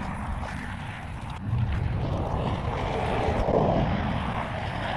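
Steady road noise from highway traffic, growing louder about one and a half seconds in, with wind rumbling on the microphone.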